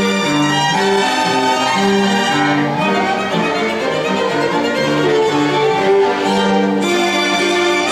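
String quartet of violins and cello playing live, bowing held notes that move in several parts at once, each note lasting about half a second to a second.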